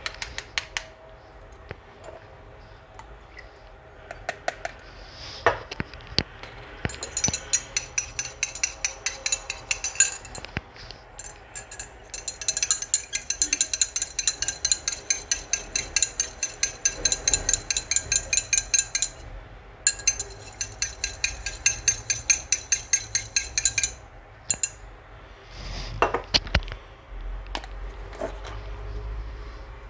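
A stirring rod clinking against the inside of a small glass beaker as a solution is stirred: rapid runs of about five clinks a second, with short breaks. A few louder knocks follow near the end.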